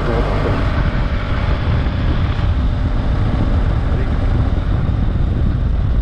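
BMW F800GS parallel-twin engine running at a steady cruise through its stock exhaust, mixed with heavy wind rumble on the microphone.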